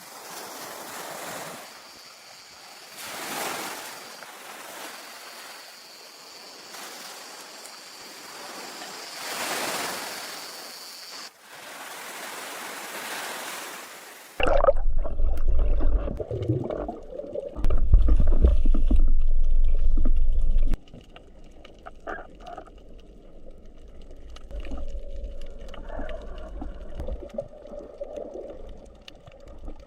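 Sea waves washing in, in slow swells, with a faint steady high whine above them. About halfway through, the sound switches abruptly to two stretches of loud, low rumbling buffeting, followed by quieter scattered knocks.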